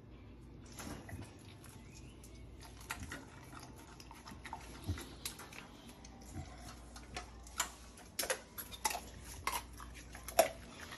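Pit bull eating raw food from a stainless steel bowl: irregular clicks and crunches of chewing that come more often and louder toward the end.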